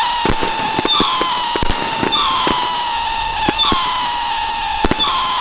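Firework batteries firing: whistling shots go off about every 0.7 s, each whistle starting a little higher, dipping and then holding, so that they overlap, over a steady run of sharp cracks from the launches.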